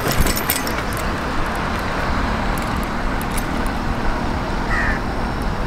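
Steady wind rush on the microphone and tyre rumble from an Atlas Bravo bicycle rolling along an asphalt road, with a few light clicks and rattles.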